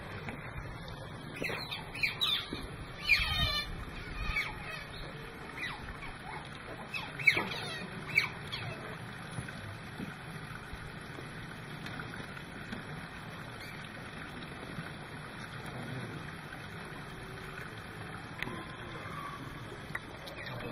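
Bouts of short, high-pitched animal chirps and squeals, some sliding sharply down in pitch. There are two clusters, one around two to four seconds in and one around seven to eight seconds in, then a few scattered chirps over a steady low hum.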